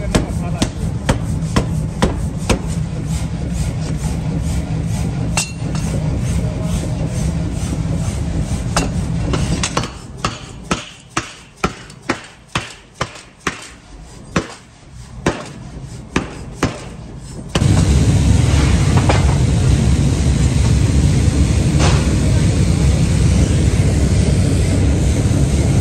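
Red-hot steel being forged: a motor-driven forging hammer runs with a steady hum and strikes the hot billet about twice a second. After about ten seconds the hum stops and a lighter run of evenly spaced ringing hammer blows follows. Near the end a loud, steady low machine rumble takes over.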